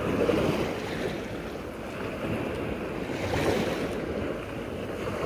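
Wind and waves washing, a steady noisy hiss that swells and eases in surges every few seconds.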